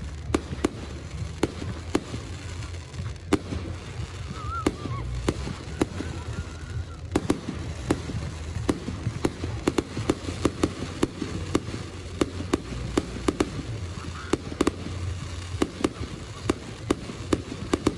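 Fireworks display: a continuous run of sharp bangs and crackles over a low rumble, sparse at first and coming thick and fast through the second half.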